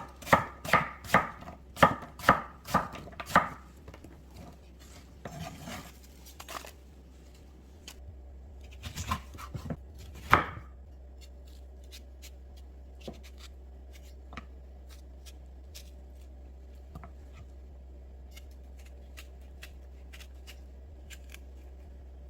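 Knife chopping on a cutting board: a steady run of about nine chops at roughly two or three a second, then a few more strikes about ten seconds in, followed by only faint small clicks.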